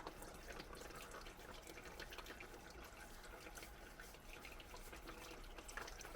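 Faint trickling and dripping of engine oil running out of the filter mounting into a drain pan, with scattered small drips.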